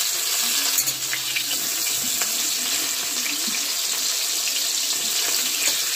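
Small shrimp fritters sizzling in hot oil in a wok, a steady hiss, while a spatula turns them over.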